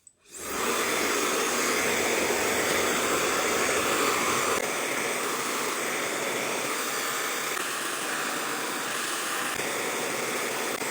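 Hair dryer switched on, swelling within half a second to a steady, loud rush of blown air. It drops slightly in level and loses some of its low end about four and a half seconds in.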